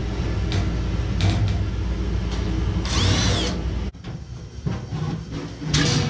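Steady whirring hum of an electric motor that cuts off suddenly about four seconds in. Knocks of sheet-metal panels being handled, and a short high metallic squeal just before the hum stops.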